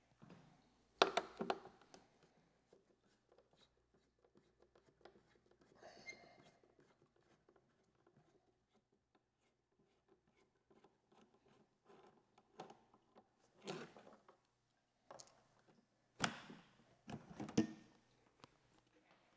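Quiet, scattered clicks and knocks of a hex key working on motorcycle seat-pan bolts and of parts being handled. There is a cluster of louder knocks about a second in and more near the end.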